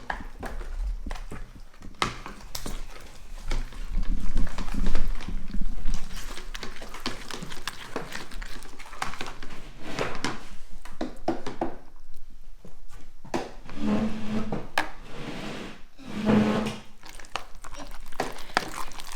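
A spoon stirring thickening slime in a bowl, with irregular clinks, knocks and scrapes against the bowl as the activator is mixed into the glue.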